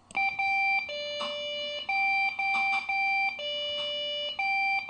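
A desktop computer's motherboard beeper sounding a POST beep code at power-on, repeating over and over: three short higher beeps, then one longer lower beep. It is the sign of the computer refusing to boot. The beeps are heard played back from a recording.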